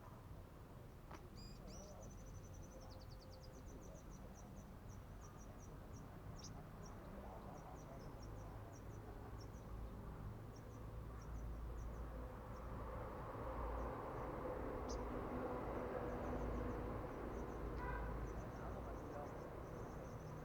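A sunbird calling: a long series of short, very high-pitched chips, with a quick trill about two seconds in, over a low background rumble that grows louder in the second half.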